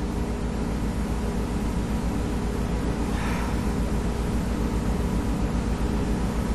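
Steady low electrical hum with a hiss over it: background machine noise with no distinct events, and a faint brief sound about three seconds in.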